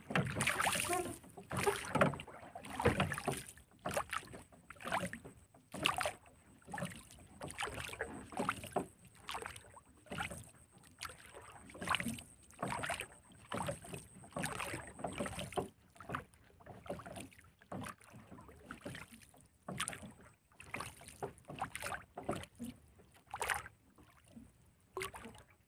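Water slapping and lapping against the side of a small wooden boat in irregular splashes.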